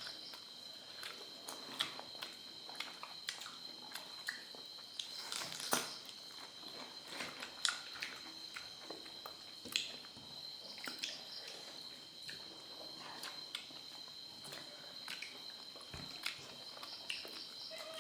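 Close-up eating sounds: irregular chewing, smacking and small clicks as a meal of fish curry and rice is eaten. Behind it runs a steady high-pitched insect trill, likely crickets.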